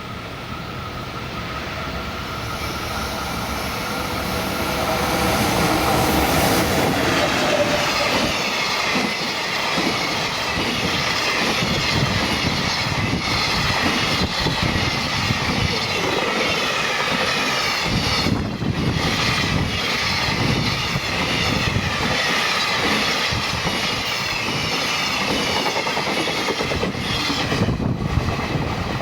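Freight train hauled by an electric locomotive, passing close by: it grows louder over the first six seconds or so, then a steady run of wagon wheels clattering on the rails follows.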